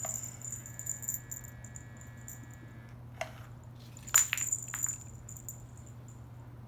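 Light metallic jingling and a few sharp clicks from a cat's pole toy being played with, the loudest click about four seconds in, over a low steady hum.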